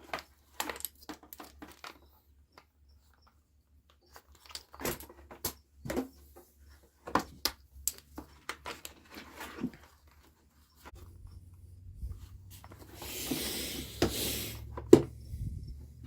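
Scattered clicks, knocks and rattles of tools and small parts being handled, with a low hum starting about eleven seconds in and a brief hiss a couple of seconds later.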